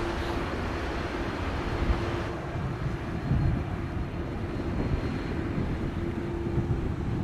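Jet engines of an Airbus A330 rolling along the runway: a steady, distant rumble with a faint hum that comes and goes.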